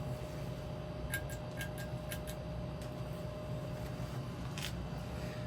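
Hunter Low Profile ceiling fan running on high speed with a steady hum, and a few light ticks about a second in and again near the end. Its bearings are worn and squeaky, which the owner calls bad bearings.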